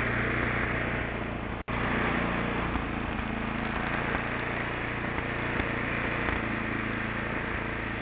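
Snowblower's small gas engine running steadily as it throws snow, heard through a small camera microphone. The sound cuts out for an instant about one and a half seconds in.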